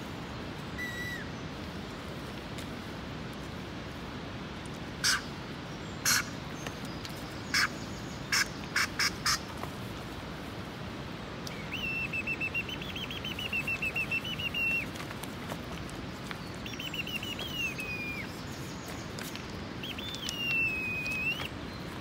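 Warbling, trilled bird-like whistled calls in three phrases from about halfway, the last ending in a falling glide. Earlier there is a quick run of about seven sharp clicks, all over a steady rushing noise.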